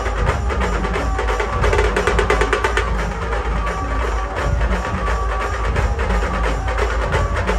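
Dhol-tasha drumming: a procession drum band playing a fast, dense rhythm of sharp beats over a steady deep bass.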